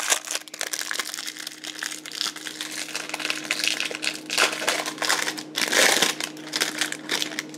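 Plastic wrapping on a trading-card box and its packs crinkling and crackling irregularly as hands work it open, over a faint steady hum.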